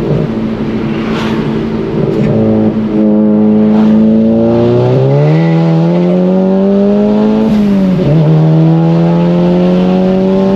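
Volkswagen Golf GTI Mk7's turbocharged 2.0-litre four-cylinder, fitted with an upgraded IS38-type turbo, heard from inside the cabin under hard acceleration. The engine note climbs steeply about four seconds in, drops with an upshift at about seven and a half seconds, then climbs again.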